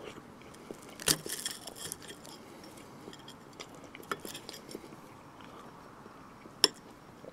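Metal fork clinking and scraping against a ceramic plate while cutting through a grilled sausage. There is a sharp clink with a short scrape about a second in, a few lighter clicks midway, and another sharp clink near the end.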